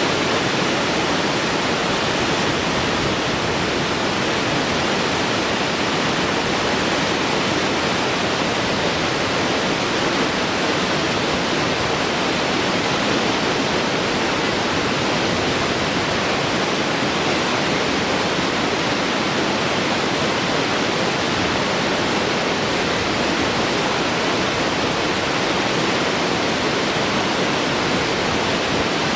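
Large waterfall flowing: a steady, even rush of falling water.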